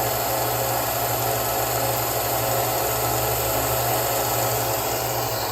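Bucktool 1x30-inch belt and disc sander combo running steadily: an even motor hum under the whir of the moving belt and disc.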